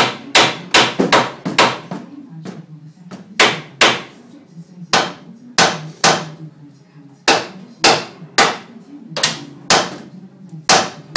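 A hammer striking steel repeatedly, about twenty hard, ringing blows at an uneven pace of roughly two a second. These are the knocks used to shock a tapered steering or suspension ball joint loose from its eye in place of a ball joint splitter.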